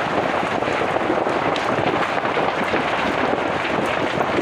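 Brush fire in a slash-and-burn field clearing: dense crackling and popping of burning dry vegetation over a steady rush of flame.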